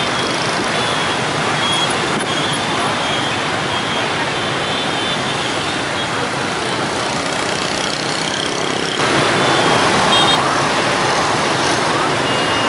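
Dense motor scooter and car traffic through a busy intersection: a steady din of many small engines and tyres, with a few short horn beeps. It gets louder about nine seconds in.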